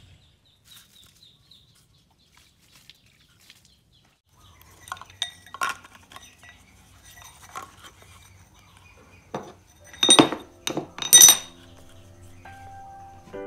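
Parts being handled on a wooden workbench: a plastic bottle, an aluminium tube and a wooden grip. Faint scattered clicks come first, then several sharp knocks and clinks about ten seconds in. Background music starts near the end.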